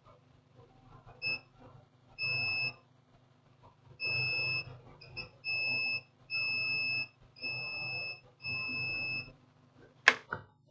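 Digital multimeter's continuity buzzer beeping in about seven short beeps of one high pitch, each about half a second, as the probes touch an ECU board point that still reads as a short. A sharp click near the end.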